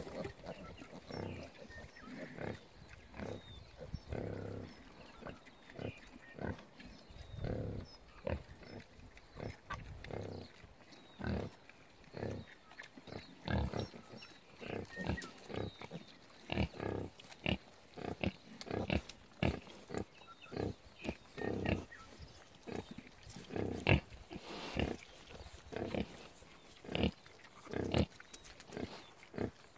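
Nursing sows grunting to their suckling piglets: short low grunts repeated over and over, coming faster, at about one to two a second, in the second half. It is the sow's nursing call that brings the litter in to feed.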